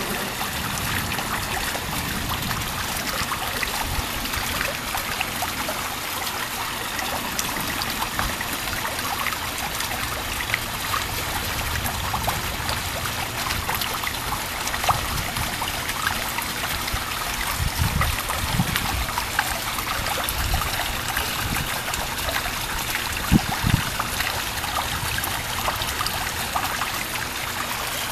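Heavy thunderstorm rain falling steadily: a dense, even hiss full of small splashes and drips. A few short low thumps come in the second half.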